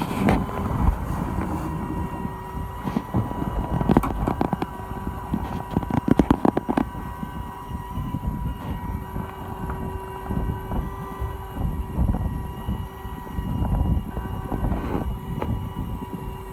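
Fishing boat's engine running steadily, with wind buffeting the microphone. A rapid run of sharp clicks and knocks comes about six seconds in.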